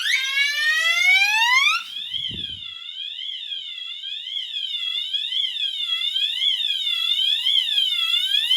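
Two multitone fire alarm horns sounding together and loud: a Gentex Commander 3 set to its slow whoop tone and a Wheelock MT set to its siren tone. About two seconds in, the sound changes from rising sweeps to a quick rise-and-fall wail, about twice a second.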